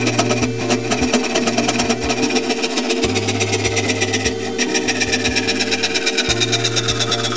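Hand saw cutting through a wooden board clamped in a bench vise, with quick, even back-and-forth strokes, several a second. Steady low tones run underneath.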